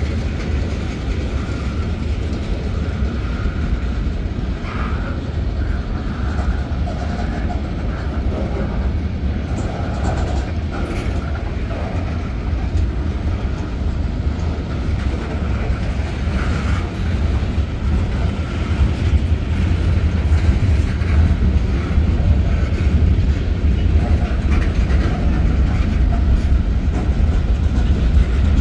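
Freight cars of a Norfolk Southern manifest train (tank cars, covered hoppers and boxcars) rolling past at street level: a steady, loud low rumble of wheels on rail with a few brief higher squeaks, growing a little louder in the last ten seconds.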